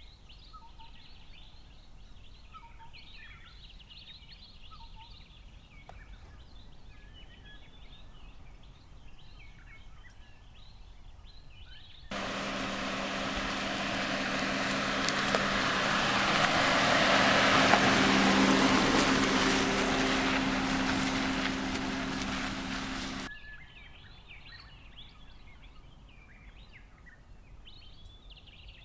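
Birds chirping and calling in the bush. About twelve seconds in, a Suzuki Grand Vitara SUV drives along a dirt track: steady engine hum and tyre noise swell to a peak and cut off suddenly about eleven seconds later, and the birdsong returns.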